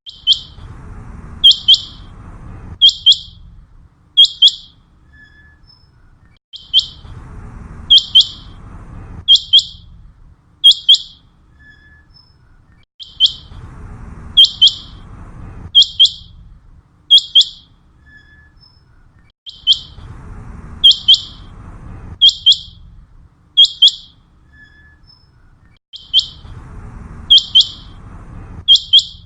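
Common quail calling: short, sharp, high whistled notes in quick clusters. A faint low rumble sits under part of each cycle, and the same sequence repeats about every six and a half seconds, like a looped hunting call.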